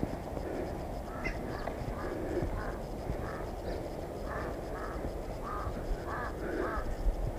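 Birds calling outdoors: a run of short, repeated calls, about two a second.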